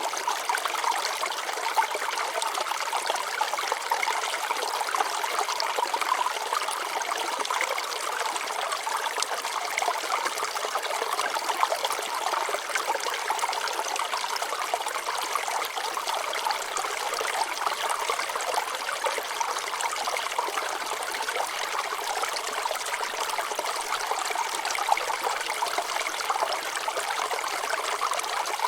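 Shallow stream water flowing and trickling over rocks, a steady babbling with the most energy in the mid range and little low rumble.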